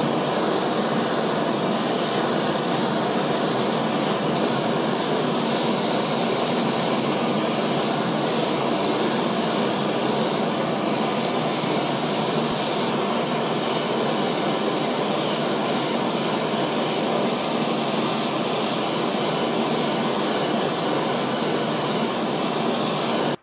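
Gas kitchen blowtorch burning with a loud, even hiss as it sears a black cod fillet. It cuts off suddenly at the end.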